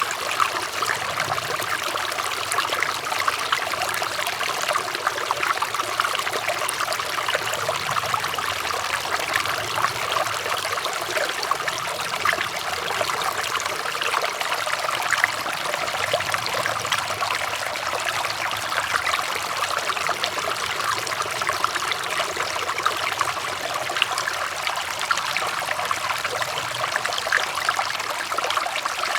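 River water flowing steadily over rocks, a continuous babbling rush with fine splashes and no change in level.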